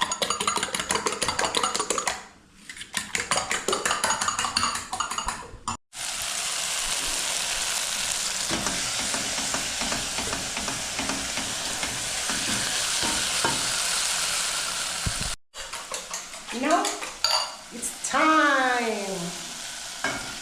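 Eggs being whisked briskly in a bowl, fast even clicking of the utensil against the bowl with a short pause about two seconds in. After a cut, the beaten eggs sizzle steadily in hot oil in the frying pan. Near the end, a wordless voice glides up and down in pitch.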